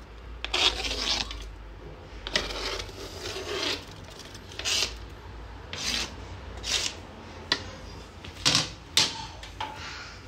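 A utensil scraping chopped onion off a plastic cutting board into a steel cooking pot, in a series of about ten short, irregular scraping strokes.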